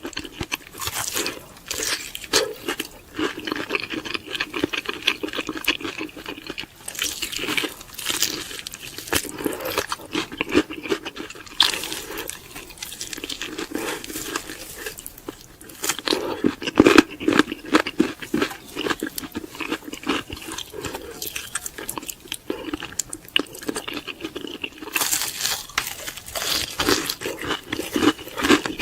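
Crispy fried chicken being bitten and chewed close to the microphone: dense crackling crunches, with louder bursts of crunch every few seconds.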